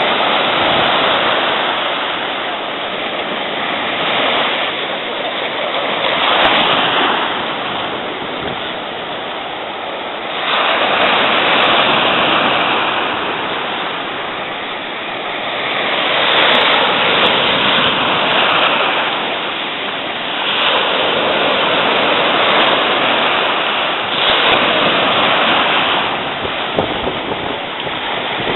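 Surf washing and breaking, a loud rush of water that swells and eases every few seconds as rollers come through.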